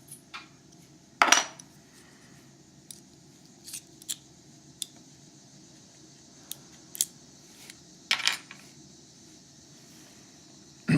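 Small metal parts of a Euro cylinder lock clicking and clinking as it is taken apart with tweezers, with two louder clinks about a second in and about eight seconds in and lighter ticks between.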